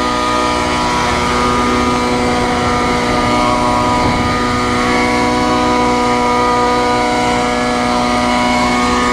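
Helicopter running steadily, its engine and rotor holding a constant pitch throughout.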